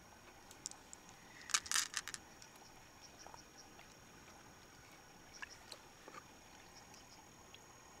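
Hard clicks and scrapes of freshwater mussel shells being handled and worked open, in a quick cluster about a second and a half in and a few lighter clicks later, over a faint steady high whine.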